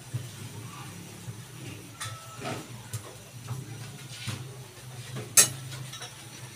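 Kitchen clatter over a steady low hum: scattered light clicks and one sharp clack a little after five seconds in, from a pan heaped with kangkong and the utensils handled around it.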